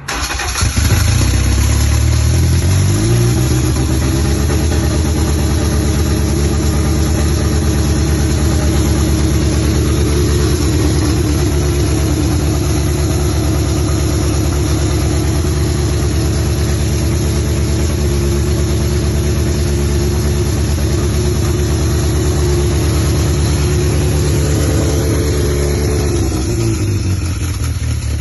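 Honda B20 VTEC engine starting and running with its starter motor stuck engaged, a terrible sound. It starts abruptly, rises in pitch over the first few seconds, holds steady, then winds down near the end.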